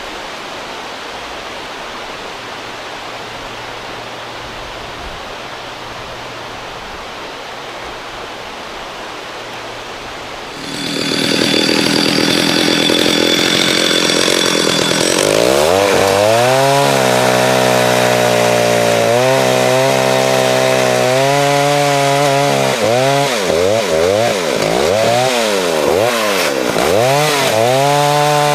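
Steady background hiss, then about ten seconds in a 1974 Stihl 075 AV 111cc two-stroke chainsaw comes in loud and runs at full throttle from about fifteen seconds. Its pitch dips and recovers again and again as it cuts small logs into kindling.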